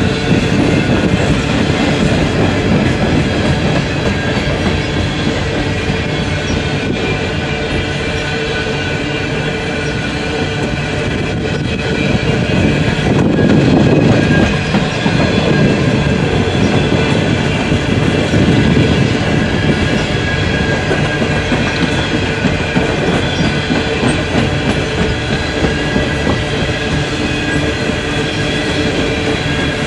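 Empty coal hopper cars of a long freight train rolling past close by: a steady rumble and clatter of steel wheels on the rails, swelling a little about halfway through, with a faint steady high whine from the wheels.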